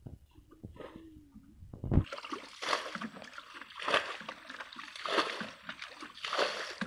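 Muddy water splashing as a plastic bucket repeatedly scoops it up and throws it out of a shallow pool, bailing it dry. The splashes start about two seconds in and come roughly once a second.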